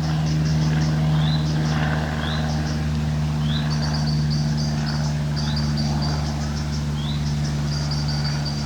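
A steady low mechanical hum, with small birds calling over it: a short rising chirp about once a second and bursts of rapid, high twittering.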